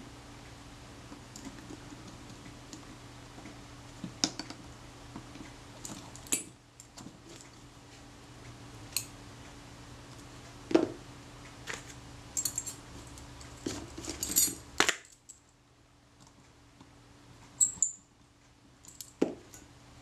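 Irregular small metallic clicks and ticks of tweezers, a jeweller's screwdriver and tiny screws against a Kodak Retina Reflex IV's metal base plate as the screws are fitted, over a faint steady hum.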